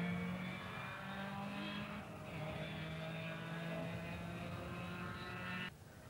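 Ford Escort rally car's 1600cc stage-3 engine held at high revs flat out, with a quick upshift about two seconds in, then cutting off suddenly near the end.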